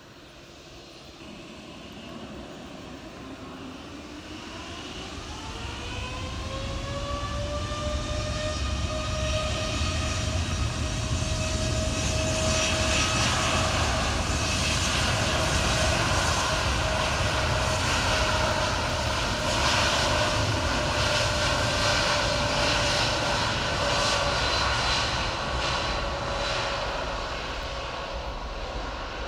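Biman Boeing 787-8 Dreamliner's twin turbofan engines spooling up to takeoff thrust on the takeoff roll. A whine rises in pitch about four to seven seconds in and then holds steady, under a growing roar that is loudest midway and eases a little near the end.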